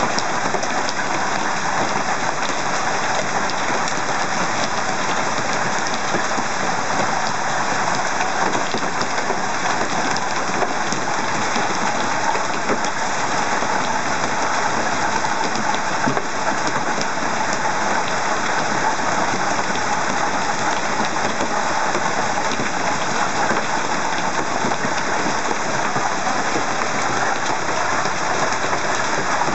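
Hailstorm: hail and heavy rain falling hard on cars and the hail-covered ground, a loud, steady, dense hiss with no let-up.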